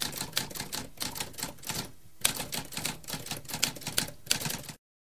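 Typewriter sound effect: a rapid run of typewriter keys clacking, with a short pause about two seconds in, cutting off abruptly near the end.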